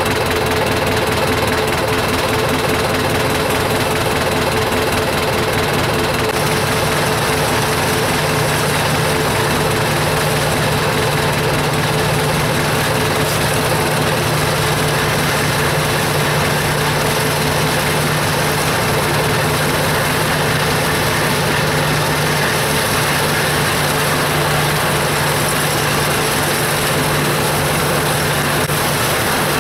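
Bizon combine harvester's diesel engine running steadily under load while it cuts and threshes rye, its low hum growing a little stronger about six seconds in as it draws nearer.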